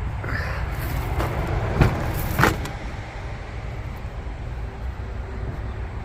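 A few sharp knocks and light rattles, the loudest two about two seconds in, over a steady low rumble: car parts and interior pieces being handled while searching through the car.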